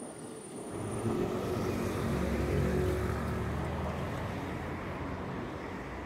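A medium flatbed truck driving past close by. Its engine rumble builds over the first second or so, is loudest two to three seconds in, then slowly eases off into steady road traffic noise.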